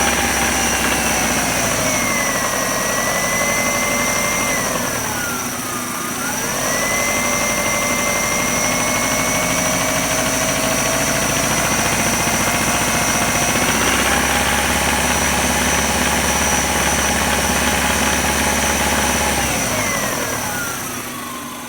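1999 Subaru Outback's 2.5-litre flat-four engine revving at varying speeds: it falls back a couple of seconds in, dips lowest about six seconds in, picks up and holds, rises again around the middle, and drops back toward idle near the end. The owner suspects a rod knock, which he hears as a hard knock between 2,000 and 3,000 rpm.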